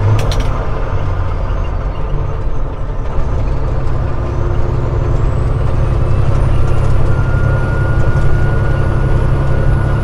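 Peterbilt 389 semi truck's diesel engine running steadily at highway speed, with road noise. A thin high whine rises from about three seconds in and then holds steady.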